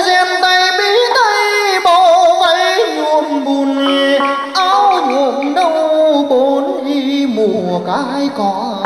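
A male voice sings a Vietnamese chầu văn–style melody with wavering vibrato and sliding ornaments, accompanied by a plucked đàn nguyệt (moon lute).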